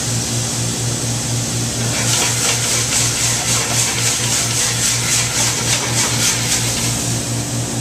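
Meat and wine sizzling in a sauté pan, with a run of quick, evenly spaced stirring or tossing strokes, about four or five a second, from about two seconds in until near the end, over a steady low machine hum.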